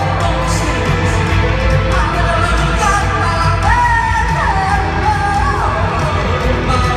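Live rock band of electric guitar, bass and drums playing loudly through an arena sound system, heard from the audience, with heavy bass and drums under a sung melody that holds notes and glides between them.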